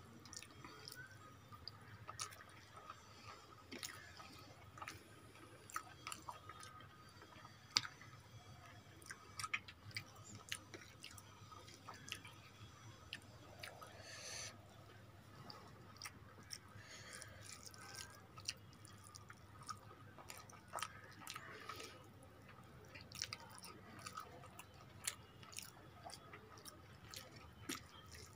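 Eating by hand: fingers mixing rice with fish curry on a plate, and chewing, heard as faint, irregular wet clicks and smacks.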